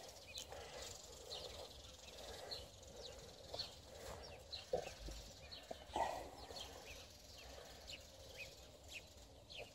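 Quiet garden sound: small birds chirp faintly in the background throughout. There are brief rustles and a soft thud about six seconds in as a dog sniffs through the grass and under a hedge.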